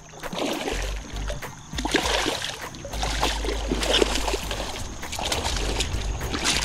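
A striped bass thrashing in shallow water at the shoreline as it is pulled onto a gravel bank: a run of irregular splashes, loudest about two and four seconds in.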